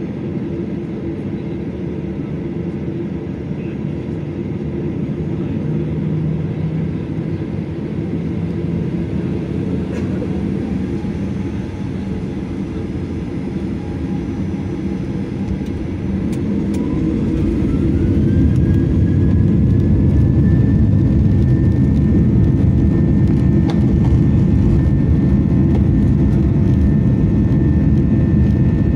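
Boeing 737-800's CFM56-7B jet engines heard from inside the cabin: a steady rumble at taxi power, then about 17 seconds in the engines spool up to takeoff thrust, a whine rising and settling into a steady high tone as the rumble grows louder for the takeoff roll.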